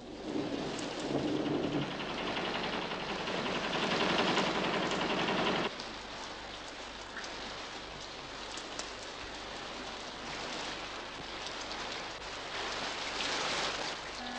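Steady heavy rain, louder and fuller with a low rumble for about the first six seconds, then dropping suddenly to a quieter, even downpour.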